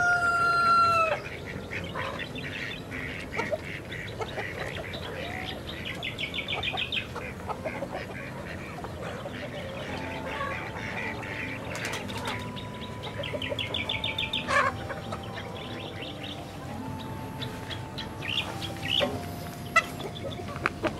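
Flock of hens clucking and calling in their pen. A rooster crows once right at the start, a held note that drops off after about a second.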